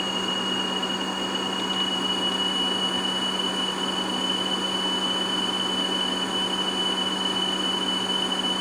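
A steady high test tone of about 3 kHz over tape hiss, played back by a 1994 Sony WM-EX512 Walkman cassette player. The pitch sits a little low and creeps up slightly while the motor speed is trimmed, a sign that the tape has been running slightly slow.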